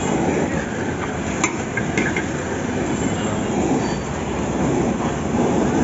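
Steady roaring din of a roadside chapati stall: open gas burner flames and passing street traffic, with a couple of sharp clicks about a second and a half and two seconds in.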